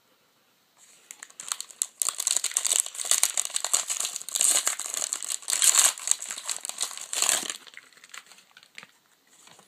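A trading-card pack wrapper being torn open and crinkled by hand. The crackling starts about a second in and dies down to faint rustling near the end.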